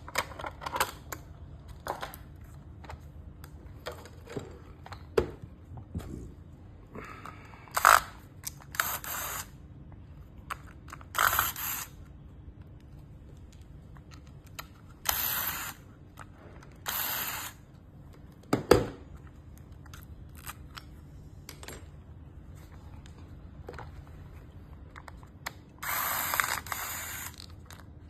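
Small parts and hand tools being handled on a toy remote-control car: scattered light clicks and two sharp knocks, with several short scraping rasps of plastic or metal parts working against each other.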